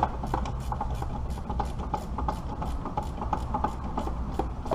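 Hand ratchet wrench clicking in a steady run, about four or five clicks a second, over a steady low hum.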